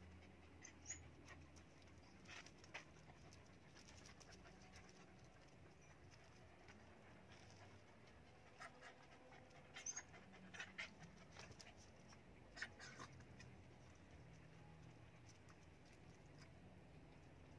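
Faint panting of small dogs, with a few brief ticks scattered through, most of them in a cluster about two-thirds of the way in.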